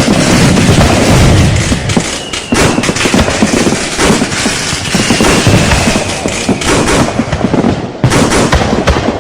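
Fireworks and firecrackers going off in a dense, continuous barrage of overlapping cracks and bangs, with a faint high whistle twice.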